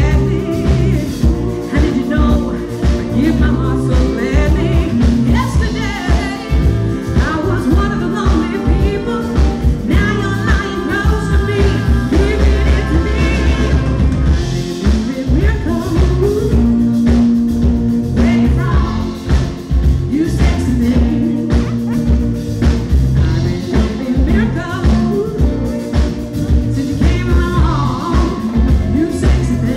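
Live band playing with a female lead singer and backing vocals over drum kit, bass and electric guitar.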